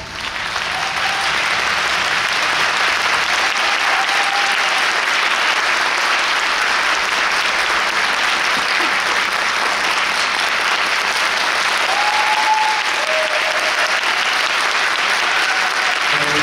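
Theatre audience applauding steadily, with a few short cheers heard over the clapping.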